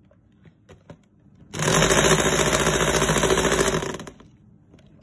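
Electric hand mixer switched on about a second and a half in, running at speed for a couple of seconds with its beaters whisking egg whites to a froth in a plastic tub, then stopping. There are a few light clicks before it starts.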